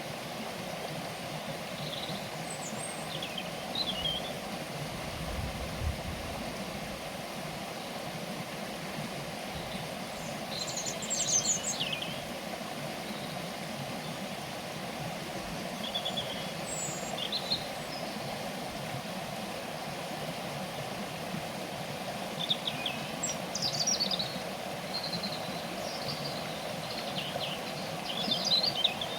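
Small birds chirping in short scattered bursts, busiest about ten seconds in and again near the end, over a steady background hum.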